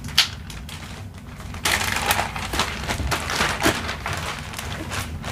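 Zip-top plastic bag being pulled open with one sharp snap of the seal, then, about a second and a half later, loud crinkling and rustling of the plastic as it is handled and its contents are pulled out.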